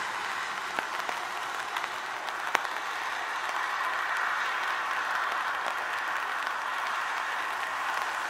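Steady light rain: an even hiss with scattered sharp drop ticks, one a little louder about two and a half seconds in.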